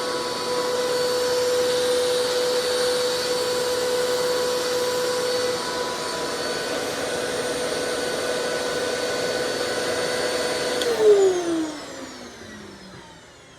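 Eureka Clean Living upright vacuum running with a steady motor hum and air rush. About eleven seconds in it is switched off, and the motor's whine falls steadily in pitch as it winds down.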